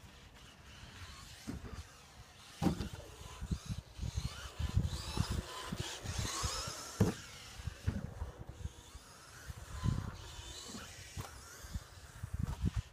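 Team Associated B5M 1/10 electric 2WD RC buggy driving on a plastic-tile track: a high, wavering electric motor whine that rises and falls with the throttle, loudest as it passes close about six seconds in, with scattered low thumps and knocks from the chassis and tyres over the tiles and jumps.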